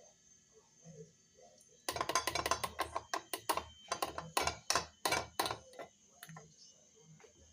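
A quick, uneven run of about twenty sharp taps or knocks on a hard object, starting about two seconds in and lasting some three and a half seconds, with one more strike a little later.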